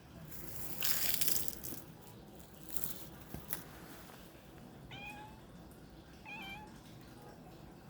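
A domestic cat gives two short meows in the second half, the second with a little wobble in pitch. The loudest sound is a noisy rustling burst about a second in, followed by a few light clicks.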